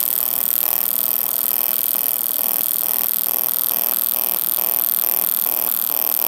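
AC TIG welding arc from an HTP Independence 210 AC/DC inverter on thin aluminum, square wave with pulse at 2.5 pulses per second: a steady high buzz and hiss that swells and dips about two and a half times a second, then stops suddenly at the end as the arc is broken.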